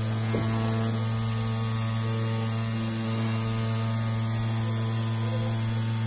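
Homemade key-cutting machine's 12-volt motor running steadily with a constant electric hum, its cutter spinning free without cutting.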